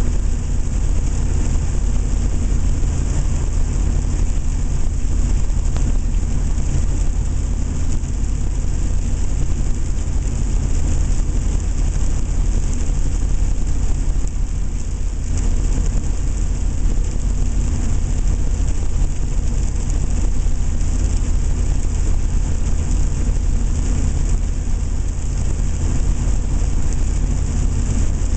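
7.3-litre turbo-diesel engine running steadily under way, a deep drone with turbocharger whistle and road and tyre hiss, echoing off tunnel walls.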